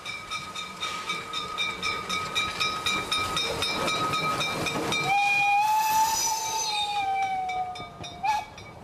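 Narrow-gauge Saxon IV K steam locomotive passing close, working with quick, even exhaust beats and a rush of steam hiss. About five seconds in it gives one long blast on its steam whistle lasting some three seconds, the pitch sagging slightly before it cuts off with a short blip.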